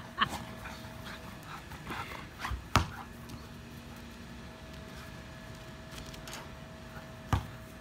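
A wooly-coated Siberian husky making small sounds as it plays. There are two sharp thumps, one about three seconds in and one near the end, which fit a basketball hitting the ground.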